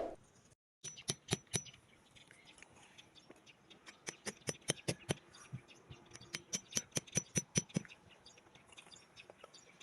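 Series of small sharp clicks and snips, a few a second, in runs from about a second in until near the end, then sparser.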